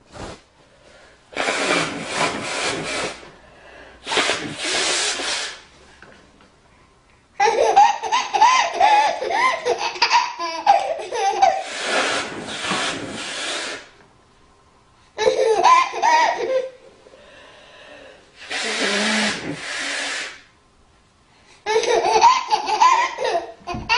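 A woman blowing her nose in loud noisy blasts, twice in quick succession and then twice more. Between the blasts a baby bursts into giggling belly laughter, several times.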